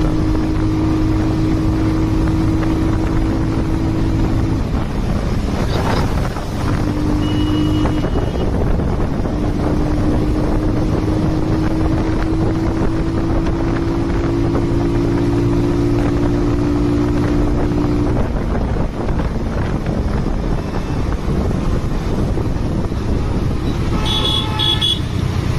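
Motorcycle engine running steadily at highway speed, with wind rushing over the microphone. The steady engine note fades out about two-thirds of the way through. Near the end a vehicle horn toots a few times in traffic.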